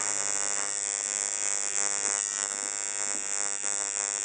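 Tattoo machine buzzing steadily as its needle runs through the skin, lining a design.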